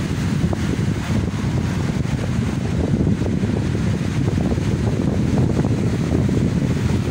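Wind buffeting the microphone in a steady, fluttering rumble, with the wash of small waves breaking over a rocky reef beneath it.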